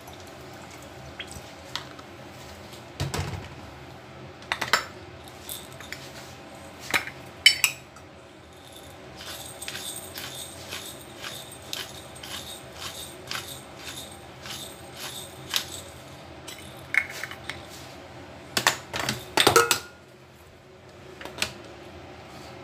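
Light metallic clinks and taps of a seasoning shaker and a stainless steel mixing bowl as seasoning is sprinkled onto chopped vegetables, with a run of quick, even rattles from the shaken shaker for several seconds in the middle. Sharper clinks come a few times, loudest about a third of the way in and again near the end.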